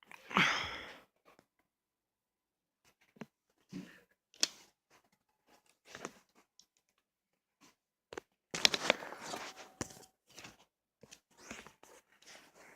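Packaging being handled and opened: a rustle at the start, scattered small clicks and rustles, then a denser stretch of tearing and crinkling about two-thirds of the way through.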